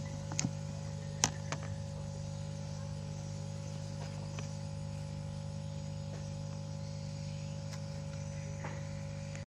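Electric aquarium air pump humming steadily as it aerates a bucket of fermenting lemna minor liquid fertilizer. A few sharp clicks come about half a second and a second in, as a plastic lid is handled over the bucket.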